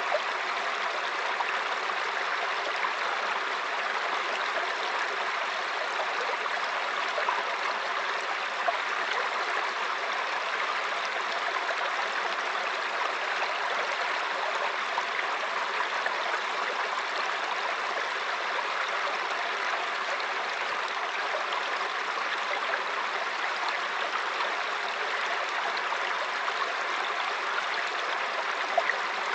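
Mountain stream flowing and splashing over rocks: a steady, even rush of running water with small gurgles.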